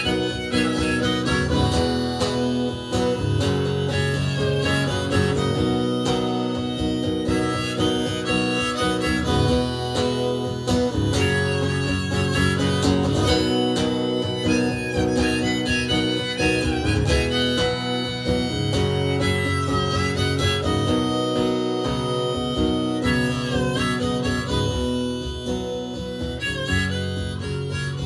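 Instrumental outro of an Americana rock song: a harmonica plays a solo with bending notes over strummed acoustic guitar and band. The music eases off slightly near the end.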